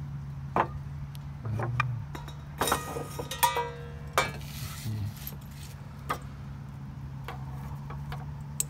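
A metal military mess kit pan and its lid plate clink and knock as they are handled and set on a wooden table, about half a dozen separate strikes. One strike about three and a half seconds in rings briefly with a metallic tone. A steady low hum runs underneath.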